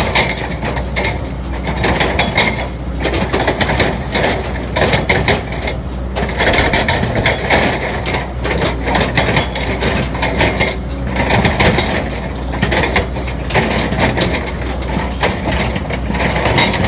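Excavator working: a steady low engine hum under continual irregular metallic clanking and rattling.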